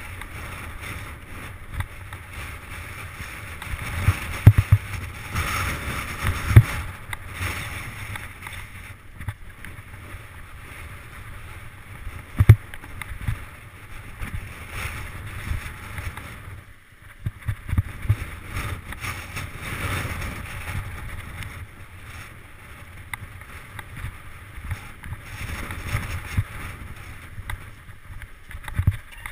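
Mountain bike riding fast down a rough gravel trail: tyres crunching and the bike rattling over bumps, with several sharp knocks from hard hits, over a steady rumble of wind on the microphone.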